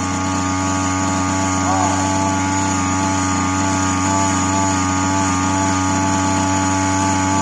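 Small two-stroke engine of a BG328 brush cutter running at a steady speed with the throttle held. It runs stable now that the bent, worn carburettor jet needle has been straightened and raised.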